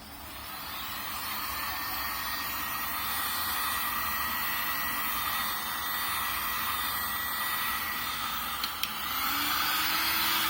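Steady rushing noise of a small motor-driven tool, with a thin high tone over it; it fades in over the first second or two and then holds steady.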